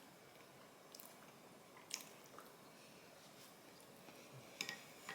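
Faint chewing of soft food, with a handful of short, sharp clicks.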